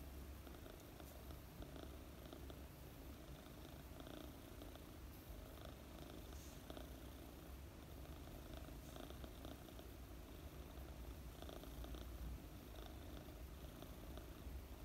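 A 4-month-old British Longhair kitten purring faintly while being stroked. The low, steady purr swells and eases in a slow rhythm about once a second.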